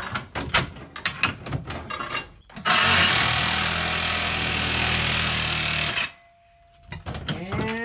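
Clicks and knocks of a pry bar working against the window frame. About two and a half seconds in, a reciprocating saw starts and runs steadily for about three and a half seconds, cutting through the window frame, then stops abruptly.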